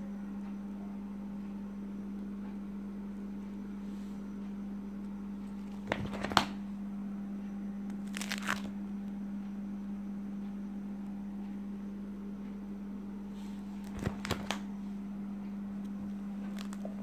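Clear plastic pocket pages of a ring-binder coin album being handled and turned: a few short crinkles and clicks, the loudest about six seconds in, another crinkle a couple of seconds later and a pair of clicks near fourteen seconds, over a steady low hum.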